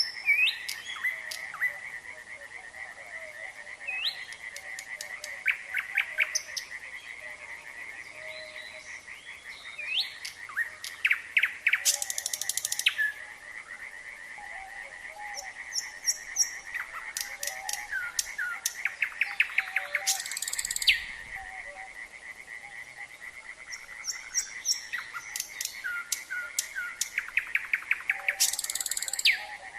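A nightingale singing in varied phrases of rapid repeated notes, rising whistles and loud buzzy rattles, over a steady chorus of frogs trilling.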